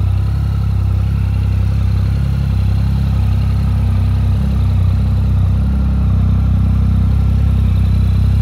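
Triumph Speed Triple R 1050's three-cylinder engine idling steadily through an Arrow silencer.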